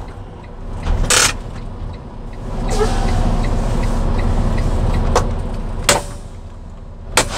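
Steady low rumble of a semi-truck inside the cab, with a rush of noise that swells about two and a half seconds in and fades near the sixth second. Several sharp clicks and knocks stand out, the loudest near the end.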